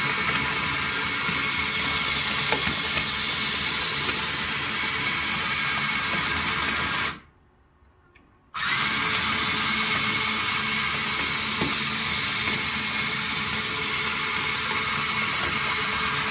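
Electric drive motors and tracks of a 3D-printed four-track RC crawler running steadily at fast driving speed. About seven seconds in they stop for about a second and a half, then start again.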